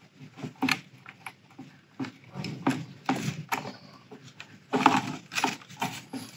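Plastic handling noise from a USB charger and cables: irregular clicks, knocks and rustles as the charger is fitted into a power strip socket, busiest about five seconds in.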